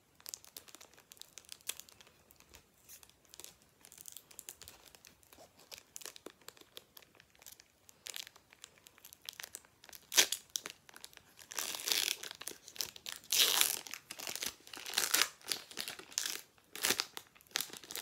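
Foil booster-pack wrapper crinkling and tearing open, with small rustles of cards being handled; the crinkling gets louder and comes in bursts about ten seconds in.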